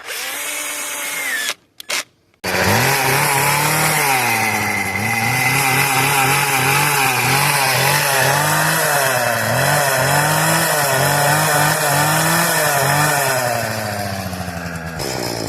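Small two-stroke weed eater engine mounted on a bicycle, running briefly, stopping, then starting again about two and a half seconds in and running loud with its pitch rising and falling unevenly, easing off near the end.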